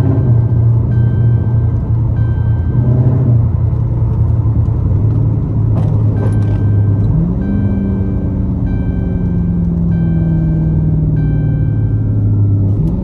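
Dodge 392 HEMI V8 engine running at low revs, then about seven seconds in its pitch climbs quickly and holds higher as the engine is revved up. Over it, the seatbelt warning chime dings repeatedly at a steady pace.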